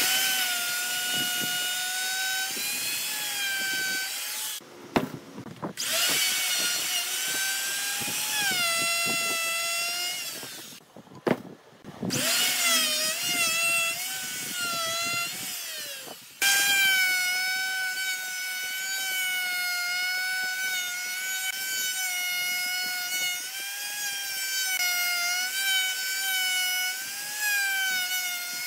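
Electric plunge router running at full speed with a steady high whine, its pitch dipping and wavering as the bit cuts into the wooden block. The sound breaks off abruptly three times and resumes.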